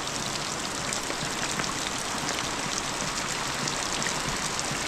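Heavy rain: a steady hiss of rainfall, with water streaming off the roof edge and splashing down in many small drops.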